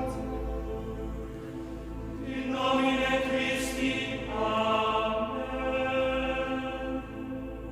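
Male voices chanting Gregorian plainchant in unison, long held notes with a new phrase entering about two and a half seconds in and another after four seconds, with echo.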